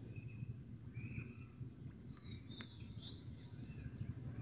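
Faint background noise: a steady low hum with a few short, faint high chirps and an occasional soft click.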